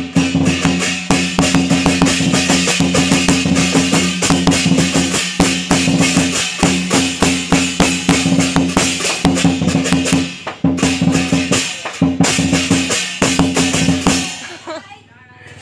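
Vietnamese lion dance percussion: a drum beaten in a fast, driving rhythm with crashing cymbals. It stops near the end.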